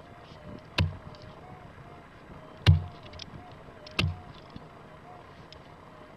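A pick strikes hard, stony red soil three times, each blow a sharp thud with a clink of stones, while a hole is being dug out. Small gravel ticks fall between the blows, and a faint wavering hum runs underneath.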